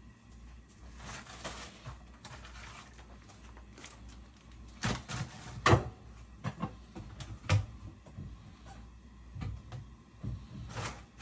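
Kitchen handling sounds: scattered knocks and clicks of cupboards and cookware being moved about while water is put on to boil. The loudest knock comes about five and a half seconds in, over a low steady hum.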